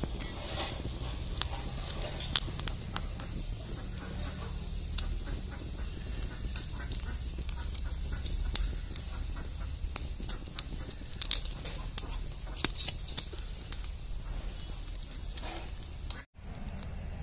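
Open wood fire crackling and popping under skewered pork, with scattered sharp pops over a low steady rumble. The sound cuts out for a moment near the end.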